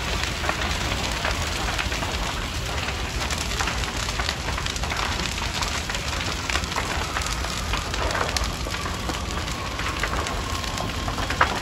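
Large warehouse fire burning, a steady dense crackle full of small sharp pops over a low rumble, with one louder pop near the end.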